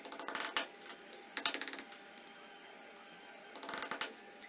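A hammer tapping a nail in quick flurries of light, rapid strikes to punch holes for wire in a small plate. There are three flurries: one at the start, one about a second and a half in, and one near the end.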